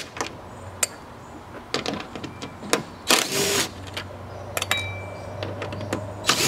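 Cordless driver spinning out grille bolts in two short bursts about three seconds apart, with light clicks and clinks of bolts and tool between.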